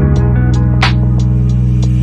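Background music: a held low bass note under sustained higher notes, with a single drum hit just under a second in.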